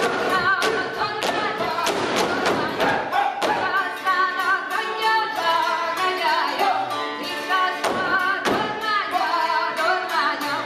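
Hungarian folk dance music from Gyergyó with voices singing, over repeated sharp thumps, typical of dancers' boots stomping.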